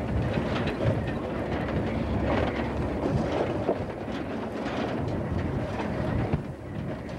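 A vehicle driving slowly over a rough, bumpy road, heard from inside: a steady low rumble with scattered small knocks and rattles.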